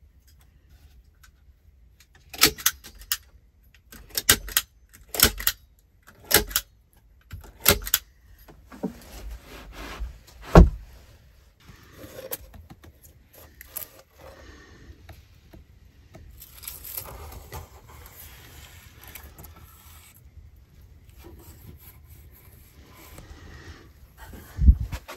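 A series of sharp metallic snaps, mostly in pairs, as a strip of felt is fastened to a log door post with a hand tool. A heavy wooden thump follows, then handling and scraping against wooden planks, and another thump near the end.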